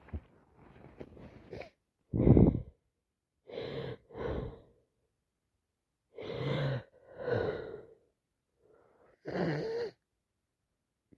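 A woman with a heavy head cold sneezing and catching her breath between sneezes: a loud sneeze about two seconds in, then gasping, wheezy breaths and further sneezes in pairs, and one more burst near the end.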